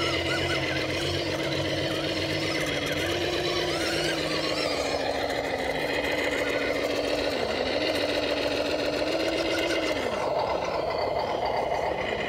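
Small electric RC scale crawler's motor and gear train whining steadily as it crawls up a rock face, with brief dips in pitch about 7.5 and 10 seconds in.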